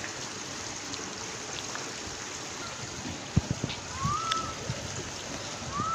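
Steady outdoor rush of wind and gentle water at a lagoon shore. A few low thumps come about three and a half seconds in, and two short rising whistles follow near the end.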